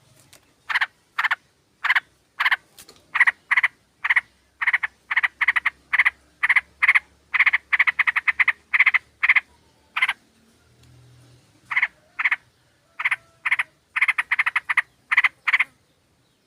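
Yellow-vented bulbuls calling: a run of short, harsh notes about two a second that quicken into rapid chatters, with a pause about two-thirds of the way through.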